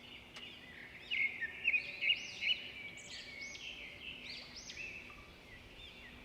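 A small bird chirping and warbling again and again in quick, high, sliding notes, over a faint steady hum.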